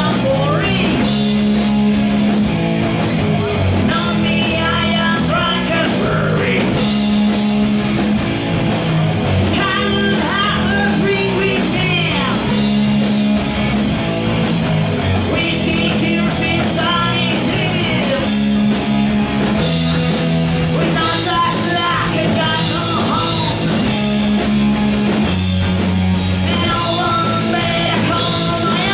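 A heavy metal band playing live: electric guitars and a drum kit, with a singer's vocals coming in and out over them.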